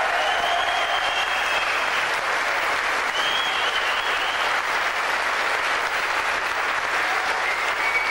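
Large crowd applauding and cheering, a steady dense clapping throughout.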